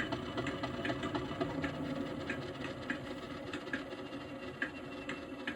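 Model Class 50 diesel locomotive's DCC sound decoder playing its engine running sound through small onboard speakers, a steady mechanical hum with light clicks every half second or so.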